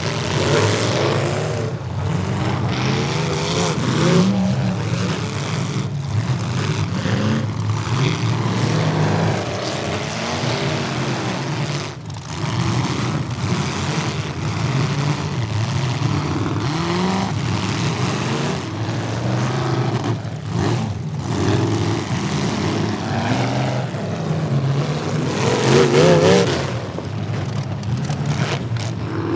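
Several demolition derby cars' engines revving hard, their pitches rising and falling against one another with a steady rumble underneath.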